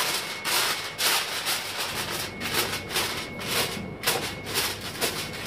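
Aluminium foil crinkling and rustling as hands press and crimp it tightly over the rim of a cooking pot, sealing it; a quick, irregular series of crackles.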